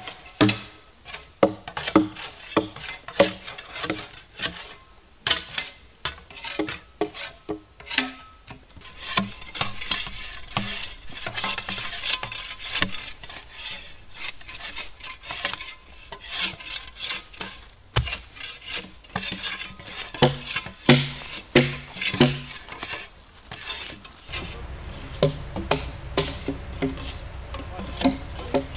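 Several steel shovel blades scraping and chopping bark off felled logs: a busy run of scrapes and sharp knocks of metal on wood, overlapping from several tools at once.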